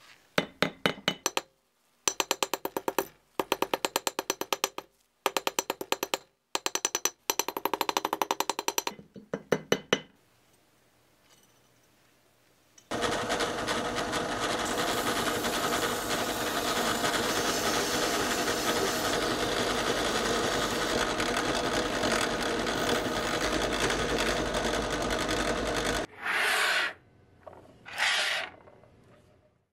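Ball-peen hammer tapping a thin steel rod on a steel bench anvil in quick runs of light blows for about ten seconds. After a pause, a drill press runs steadily for about thirteen seconds, and two short bursts of noise come near the end.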